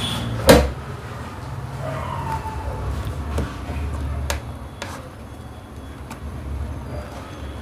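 Hands tugging at the push-on spade-terminal link between two sealed lead-acid UPS batteries: a sharp click about half a second in, then a few faint clicks, over a low steady hum. The link is stuck very tight and will not come off.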